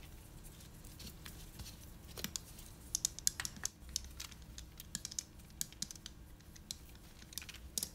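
A scatter of light, irregular clicks and taps, densest about three to four seconds in, from a silicone rolling pin and plastic-gloved hands working dough on a countertop.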